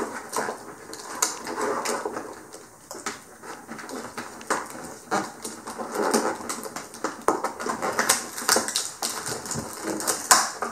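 Fingers scratching and picking at clear packing tape on a cardboard box, with irregular scrapes, taps and short rips of tape against the cardboard.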